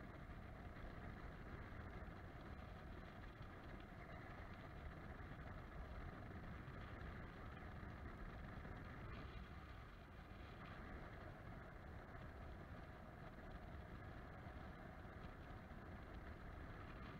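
Faint, steady wind noise from the airflow over a paraglider's camera in flight: a low rumble with a softer hiss above it.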